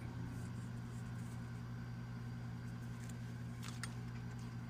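Steady low hum from a machine or electrical source in the room, holding at an even level. A couple of faint short clicks come about three and a half seconds in.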